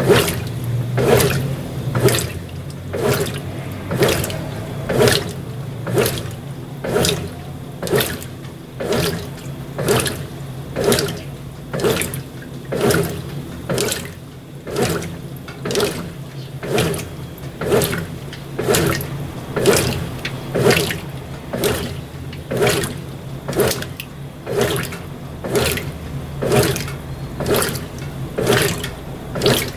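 Brastemp BWT12 top-loading washing machine agitating its load in the rinse: water swishes back and forth about once a second over a steady low motor hum.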